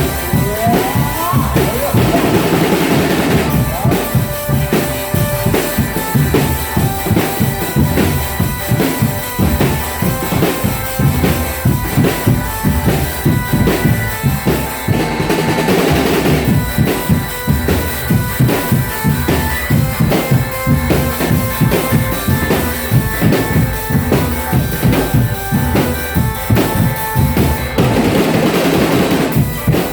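Indonesian drumband, the percussion band that accompanies can macanan shows, playing a fast, steady beat of snare and bass drums. Crash-like swells come about three times, roughly 13 s apart, over held melody tones.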